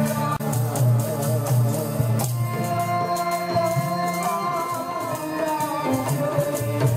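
Live Punjabi Sikh devotional music: a man singing to harmonium accompaniment, with a small hand-held drum struck with the fingers in a quick rhythm.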